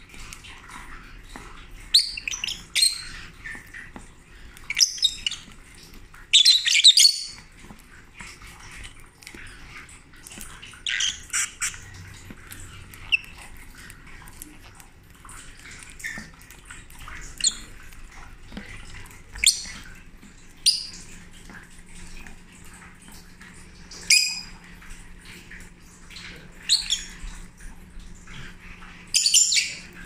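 Lovebirds giving short, sharp chirps and squawks, one every second or two, some in quick clusters of two or three.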